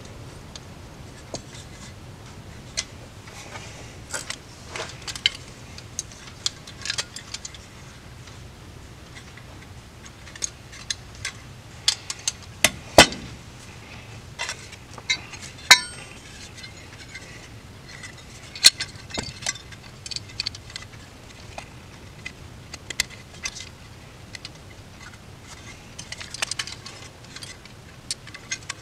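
Scattered light metallic clicks and clinks as the brass floats and small parts of an Edelbrock 1406 carburetor's air horn are fitted and handled on a workbench, the sharpest clink about halfway through.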